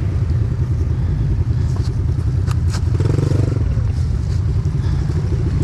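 Small dirt-bike engine running near idle with a fast, even putter, with a short rev about three seconds in. A few light knocks come about two and a half seconds in.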